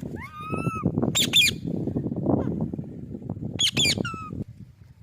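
Pet parrot calling: a gliding whistled note near the start, then shrill squawks about a second in and again near the end, over a low scuffling noise.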